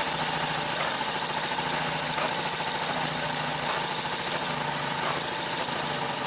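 Consew 744R-30 walking-foot (triple-feed) industrial sewing machine running steadily, stitching through three layers of material.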